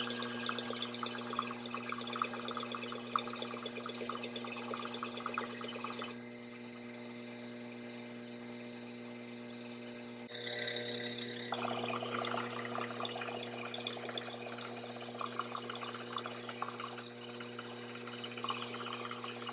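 Early-1910s L. J. Wing Hypress low-pressure blower running, freshly cleaned and oiled, pushing air out through its brass outlet with a fluttering rush. The air quietens for a few seconds, then a loud hiss of air comes about ten seconds in. A steady hum runs underneath.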